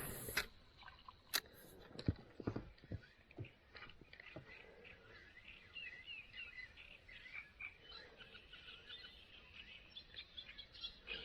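Small birds chirping in quick, repeated short calls that become busier after about five seconds, with a few sharp clicks in the first seconds.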